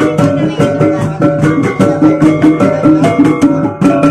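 Bajau bertitik gong ensemble playing: tuned gongs of a kulintangan struck in a fast, even pattern of ringing tones, with drum beats underneath.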